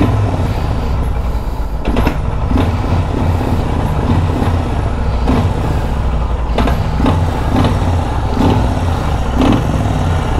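Kawasaki VN1500 V-twin engine running with a low, steady rumble, broken by a sharp pop every second or so at uneven intervals. The rider puts the banging down to a little water drawn in during the bike wash.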